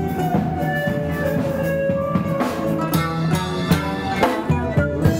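Instrumental music with a drum kit and held melodic notes.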